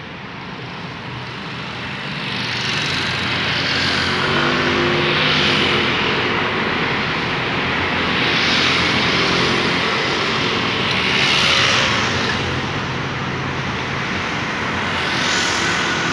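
Street traffic: cars and scooters passing one after another, the noise swelling and fading with each vehicle.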